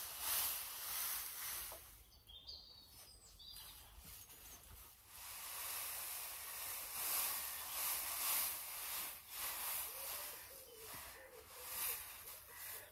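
Dry straw rustling and crackling as it is shaken out and spread for bedding, in uneven surges with a quieter stretch about two seconds in.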